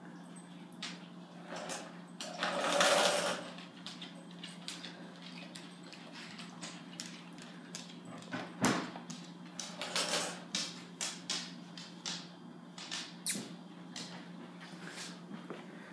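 Small homemade robot's two DC gear motors, salvaged from printers, running in short spurts as it drives and turns, with scattered clicks over a steady low hum. A louder rustle comes about three seconds in.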